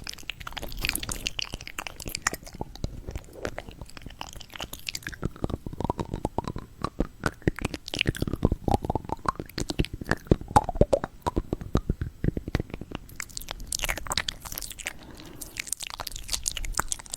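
Close-miked ASMR chewing and biting of fruit: many crisp, crunching clicks that grow densest in the middle, with wet mouth sounds between them.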